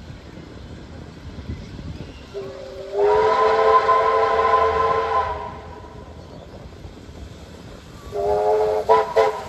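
Steam locomotive whistle, from one of the steam locomotives 3526 and 6029 approaching side by side, sounding a loud, chord-like blast of about two and a half seconds. A second, shorter blast comes about eight seconds in and breaks into quick toots at its end.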